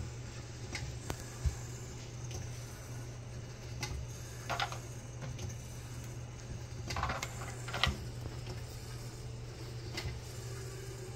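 Small clicks, taps and brief scrapes of a plastic blood tube, dropper and glass slide being handled on a lab countertop, a few of them about halfway through and near the end, over a steady low hum.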